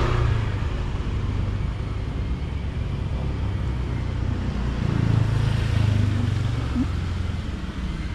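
Motor scooter engine running at low speed, a steady low hum that swells a little about five seconds in and eases off near the end.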